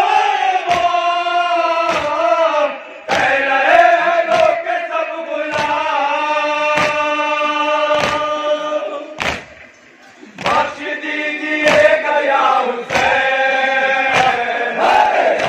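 Men of an anjuman chanting a noha (Shia lamentation) in unison, in long held lines kept in time by regular sharp beats about every two-thirds of a second. The chant and beats drop away briefly about ten seconds in.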